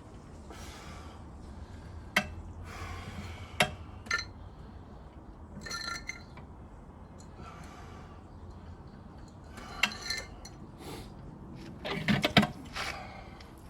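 Metal hand tools scraping through sand-and-cement mortar in short strokes of about a second, with sharp clinks against the bricks; a quick run of clinks comes near the end.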